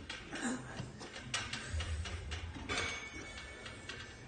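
Scattered clicks and clanks from a pec deck weight-stack machine as a lifter settles into it and takes the arm pads, with a low thud about two seconds in. A faint steady high tone runs through the last second or so.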